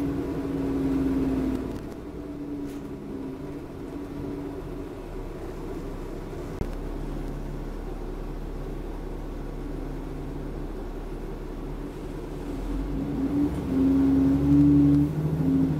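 Diesel engine and drivetrain of an Alexander Dennis Enviro 400 double-decker bus, heard inside the upper deck while it is driven: a steady low hum that swells louder near the end.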